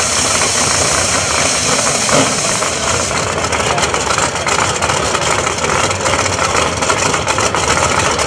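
Drag race car engines idling loudly at the starting line. From about three seconds in, the idle turns lumpy with rapid, irregular pops.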